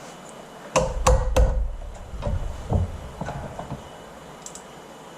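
Three sharp knocks in quick succession about a second in, then a run of lighter knocks and clatter that dies away after a few seconds: hand tools and loose parts knocking during work on stuck studs in a snowmobile fuel-tank backer plate.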